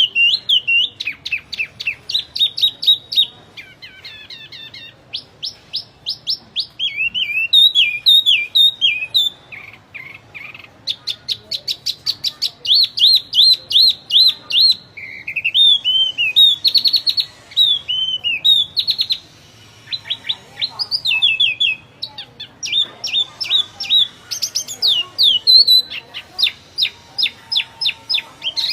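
A wambi songbird singing a full, busy song: rapid runs of sharp chirps and trills broken by curving whistled slurs, pausing only briefly. It is the kind of 'gacor' song kept as a master recording for other songbirds to learn from.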